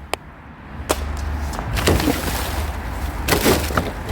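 Rubbish being handled and sorted: a couple of sharp clicks, then rustling, scraping and knocking of objects being moved about, busiest near the end.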